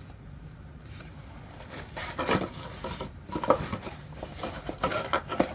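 Small clicks, taps and rustles of a cosmetic product's box and container being handled and opened, in a few short clusters from about two seconds in.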